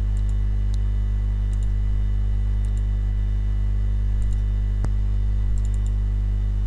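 Computer mouse clicking, faint short clicks, some in quick pairs, over a steady electrical mains hum that is the loudest sound throughout.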